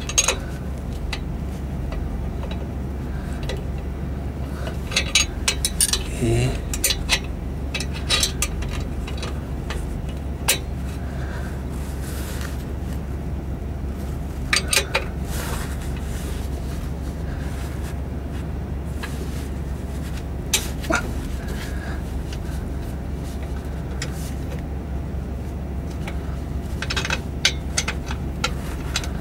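A steel combination wrench clinking against the bolts of a stainless exhaust pipe flange as the bolts are worked loose, in scattered clusters of short metallic clicks, over a steady low hum.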